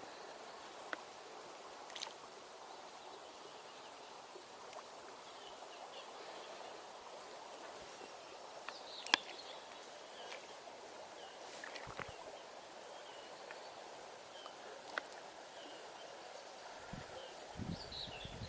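River water running steadily over a shallow riffle, with a few faint clicks and chirps, the sharpest click about nine seconds in.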